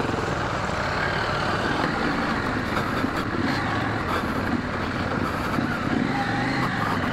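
Adventure motorcycle engine running steadily as the bike rides along an off-road track.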